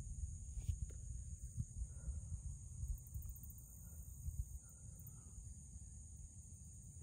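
Wind rumbling unevenly on the microphone over a steady, high-pitched drone of insects.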